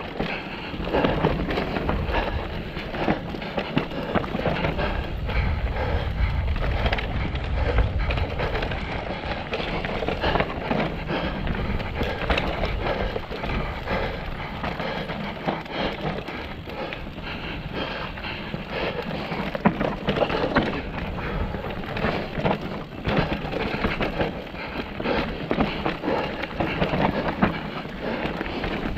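Mountain bike riding down a rough, rocky trail: tyres crunching over stones and the bike rattling with a constant run of small knocks and clatters. A heavier low rumble comes in from about four to nine seconds in.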